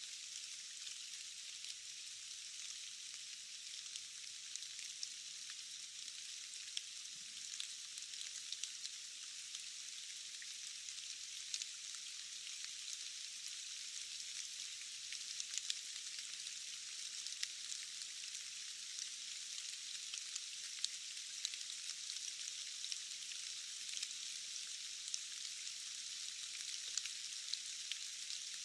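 Steady rain falling in a rainforest: an even, high hiss with no low rumble, dotted with many small ticks of single drops.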